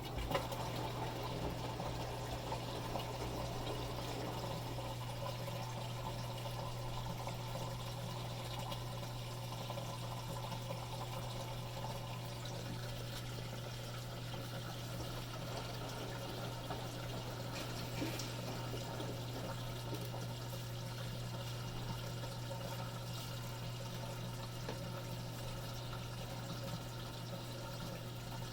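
Samsung WF45K6200 front-load washing machine running with water moving through it, over a steady low electric hum.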